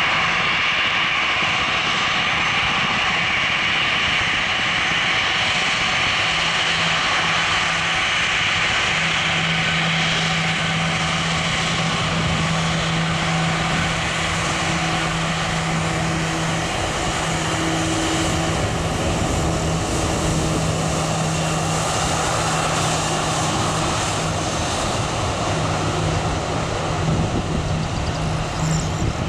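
Airbus A340-300's four CFM56 turbofan engines at taxi power: a steady jet rush with a high whine as the airliner taxis past. The whine is strongest for the first ten seconds or so, then eases as the aircraft turns away.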